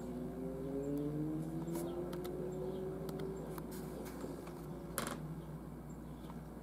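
Handling noise from a handheld camera being zoomed and moved: several light clicks and one sharper knock about five seconds in, over a low hum with faint tones gliding slowly upward.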